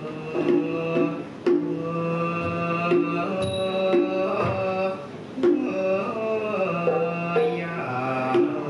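Thai piphat mai khaeng ensemble playing: struck ranat xylophone and gong-circle notes with drum strokes, under a held melody line that bends in pitch.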